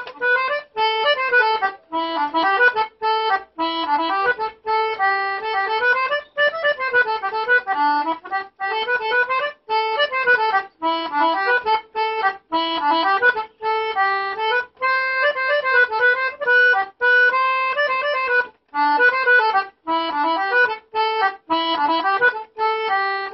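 Concertina playing an English folk tune, a mostly single-note melody with frequent short breaks between notes and phrases, played by a beginner.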